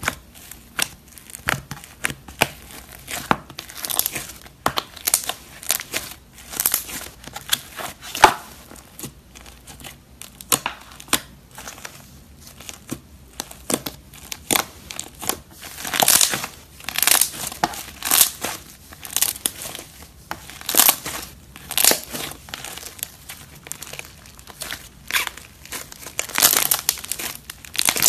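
Iceberg slime being squeezed and poked by hand, its hardened crust crackling and crinkling in irregular bursts of small crunches.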